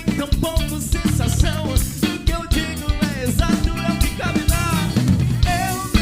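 A rock-pop band playing with a drum kit beat, bass guitar and electric guitar, with a lead melody that bends in pitch over the rhythm.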